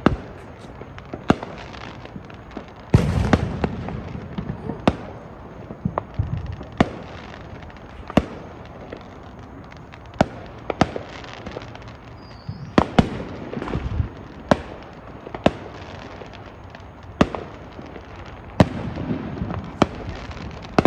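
Neighbourhood fireworks and firecrackers going off: sharp cracks at irregular intervals, roughly one a second. A louder cluster with a low rumble comes about three seconds in.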